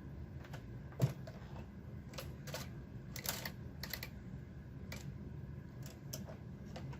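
Garter carriage being slid along a knitting machine's needle bed, giving a run of irregular clicks and clacks, the sharpest about a second in.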